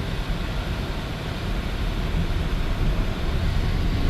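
Road noise heard inside a moving car's cabin: a steady low rumble with a hiss of tyres running over a snowy road.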